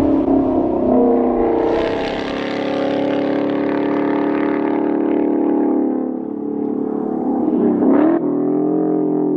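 High-performance car engine running hard. Its note steps up and brightens a second or two in, then slowly falls, with a brief sharp swoop in pitch near the end.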